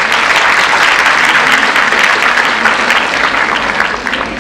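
Audience applauding: steady clapping from a large crowd in a hall, easing off near the end.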